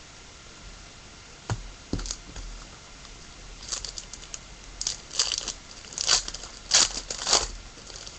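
Trading card pack wrapper being torn open and crinkled by hand: a couple of soft knocks early, then a run of crinkling and tearing rustles, loudest near the end.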